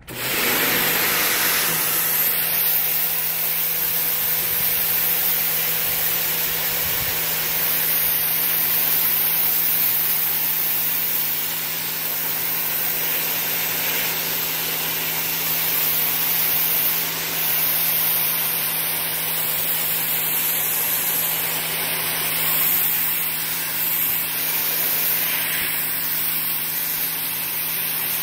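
Sun Joe SPX3000 electric pressure washer running, its 14.5-amp motor and pump humming steadily under the loud hiss of a 15-degree water jet blasting grime off a concrete sidewalk. It comes on abruptly at the start and holds steady.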